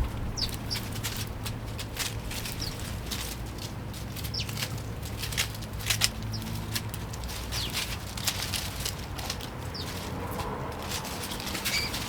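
Sparrows giving short, high chirps every second or two over many scattered sharp clicks and taps, with a steady low hum underneath.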